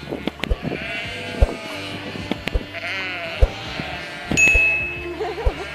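Several wavering bleats from livestock, mixed with sharp clicks and knocks. About four and a half seconds in, a short steady high tone is the loudest sound.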